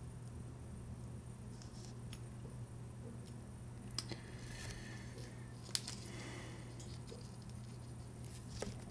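Faint small clicks and scratching of brass tweezers working on a watch balance wheel set in a staking tool, with a few sharp ticks about four and six seconds in, over a steady low hum.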